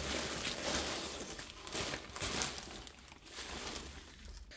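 Plastic mailer bag and bubble wrap crinkling and rustling as a parcel is pulled open by hand. The rustling is faint and uneven and dies down toward the end.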